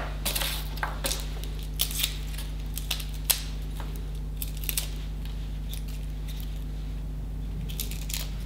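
Small clicks, taps and scrapes of a kitchen knife and garlic skin against a cutting board as garlic cloves are peeled by hand, scattered and irregular, most of them in the first five seconds, over a steady low hum.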